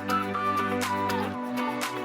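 Background music with a steady beat, sustained tones and a gliding melody line.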